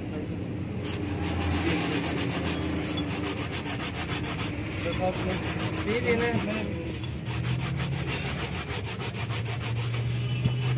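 A metal hydraulic jack cylinder being rubbed down by hand in rapid, even back-and-forth strokes, starting about a second in, with two short pauses.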